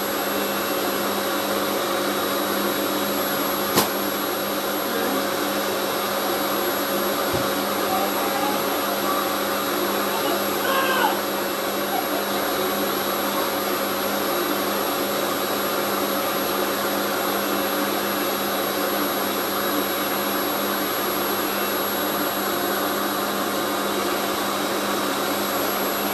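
Revair reverse-air hair dryer running steadily, its motor drawing air through the wand like a vacuum cleaner. A single sharp click comes about four seconds in.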